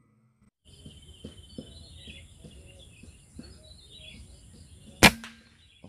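Birds chirping and insects droning steadily, then about five seconds in a single sharp crack of a PCP air rifle shot, the loudest sound, with a brief ring after it.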